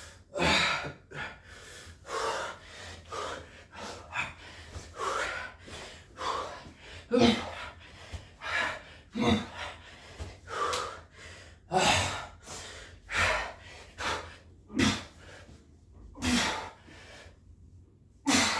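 A man's heavy, rapid breathing from the exertion of burpees: hard gasping breaths about once a second, some with a short grunt, easing briefly near the end.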